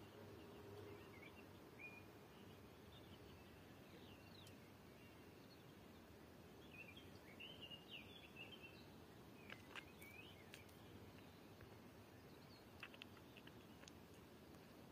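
Faint rural dusk ambience: a steady low hiss with scattered short bird chirps, busiest about halfway through, and a few sharp clicks later on.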